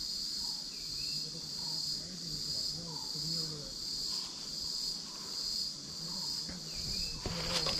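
A steady, high-pitched chorus of cicadas shrilling continuously.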